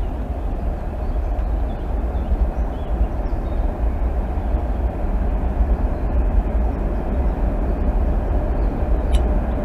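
Steady low rumble of wind buffeting the microphone outdoors, with a faint short click about nine seconds in.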